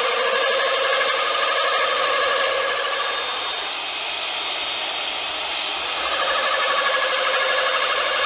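Power drill running a Pulvex diamond core bit through vitrified porcelain paving, a steady motor whine with a grinding edge. The whine sags in level and pitch for a couple of seconds in the middle, then picks back up.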